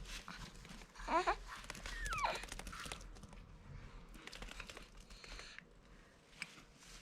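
A dog hiccuping: a short squeaky hic about a second in, then a quick falling whine, with faint rustling and small clicks around it.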